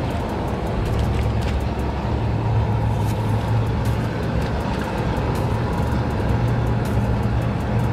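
Steady low hum of a live-bait tank's water pump or aerator, with the tank water churning and bubbling.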